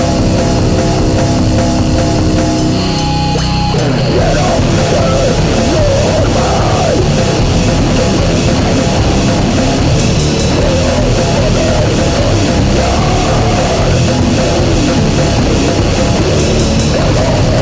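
Loud heavy metal / punk rock music with a drum kit, played without a break; the held notes stop about four seconds in and the part changes.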